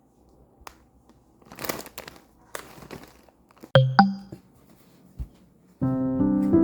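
Crinkling and rustling handling sounds with a few small clicks, then two sharp knocks close together about four seconds in, each with a short ring. Piano music starts near the end.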